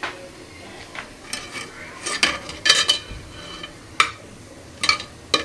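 A slotted spatula scraping and clinking against the bottom and sides of a steel pressure-cooker pot in irregular strokes, stirring cumin seeds in hot oil.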